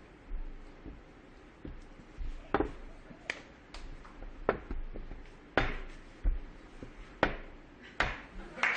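A string of sharp, irregular knocks and taps: a metal cup and small balls being set down and moved on a tabletop, about a dozen hits, a few louder than the rest.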